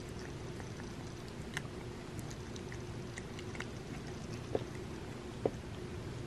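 Cat licking and chewing bits of turkey off a plastic spoon: soft scattered mouth clicks and smacks, with two sharper clicks about a second apart in the second half, over a steady low hum.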